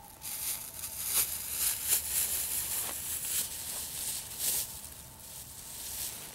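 Thin plastic bag crinkling and dry leaves rustling as a shot squirrel is put into the bag, in a series of short bursts that fade near the end.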